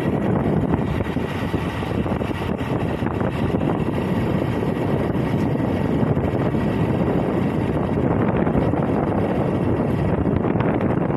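Motorcycle riding at a steady speed: wind rushing over the microphone mixed with the engine and tyre noise, a steady low rumble with no changes.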